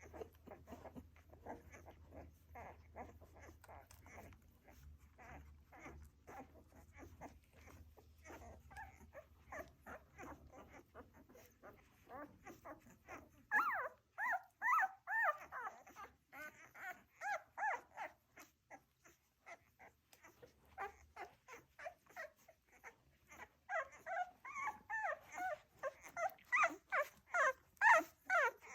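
Welsh Springer Spaniel puppies nursing: a quick, steady patter of small suckling clicks, broken about halfway through and again in the last few seconds by bursts of high-pitched puppy whimpering squeals.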